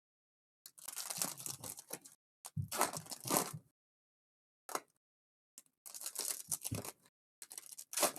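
Trading-card pack wrappers being torn open and crinkled by hand, in several short rustling bursts with silent gaps between them.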